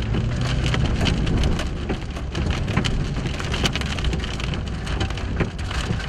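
Rain striking a vehicle's roof and windshield: a dense scatter of small sharp ticks over a steady wash of noise. Under it runs the low rumble of the vehicle rolling along a gravel drive, strongest in the first second or so.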